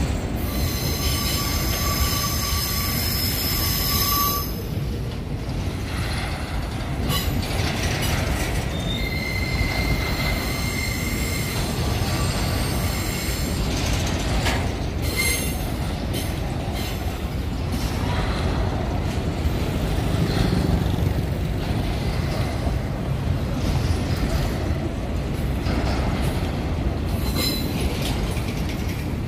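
Empty grain hopper cars of a freight train rolling past with a steady rumble of wheels on rail. High-pitched wheel squeal sounds for the first few seconds and again around ten seconds in, with a few short clanks between.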